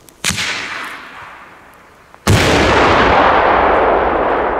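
A sharp bang about a quarter second in, then a little over two seconds in the very loud blast of a 500 g cipolla, a handmade flash-powder ground salute. The blast's rumbling echo goes on long after the bang.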